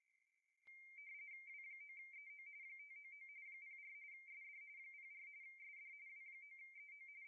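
Radioteletype (RTTY) FSK signal from an Icom IC-7300 sending a contest exchange: two closely spaced tones near 2 kHz warbling rapidly back and forth as the characters go out. A click starts it a little under a second in.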